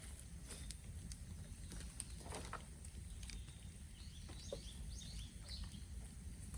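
Bonfire of bamboo burning with a low steady rumble of flames and scattered sharp crackles and pops. A small bird chirps several times a little past the middle.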